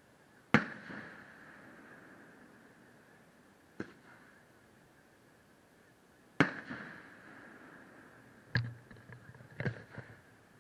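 Aerial fireworks shells bursting: five sharp booms, each trailing off in an echo. The loudest come about half a second in and just after six seconds in, one weaker bang falls between them, and the last two, near the end, are followed by brief spatters of smaller pops.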